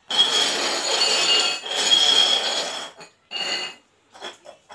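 Upturned stainless steel tumblers being slid and shuffled across a hard floor: a scraping rasp with a high metallic ring for about three seconds, then a few short clinks and knocks.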